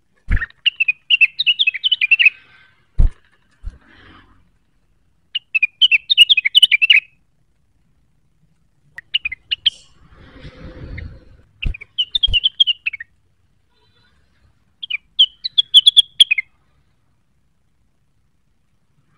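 A rengganis songbird in full song, giving five bursts of rapid, high chattering notes separated by pauses. A few sharp knocks and a brief low rustle come about ten seconds in.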